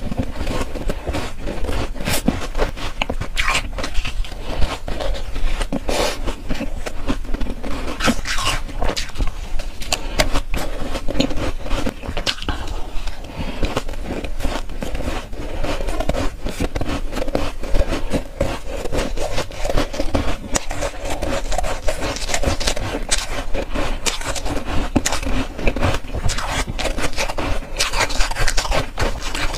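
Close-miked chewing of a mouthful of soft, powdery ice: dense, continuous crunching with no pauses.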